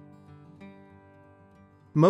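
Quiet background music with guitar, a few notes held steady.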